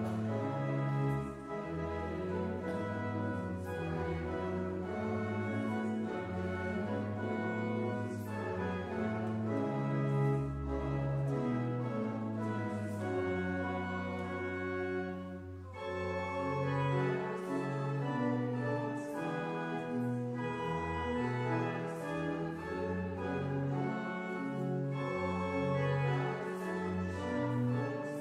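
Church organ playing slow sustained chords over a bass line that moves from note to note.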